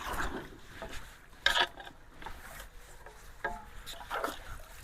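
Sticks and woody debris scraping and knocking as they are dragged out of a clogged culvert: a few short scrapes, the loudest about a second and a half in.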